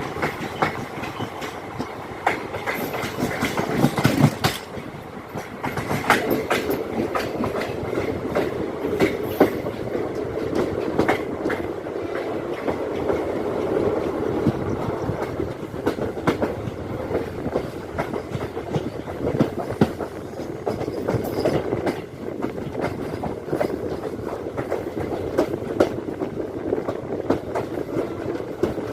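Sangam Express passenger coaches rolling past on the track, their wheels clattering over rail joints: a rapid, irregular run of sharp clicks over a steady rumble.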